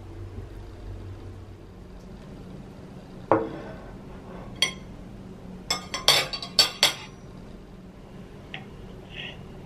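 Tableware clinking: a knock about three seconds in, then a quick run of sharp clinks of metal cutlery against a ceramic plate, with a few faint ticks near the end.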